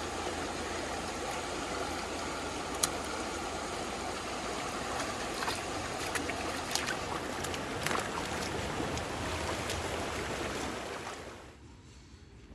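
Creek water rushing steadily, with a few sharp clicks in it. The sound drops away suddenly near the end.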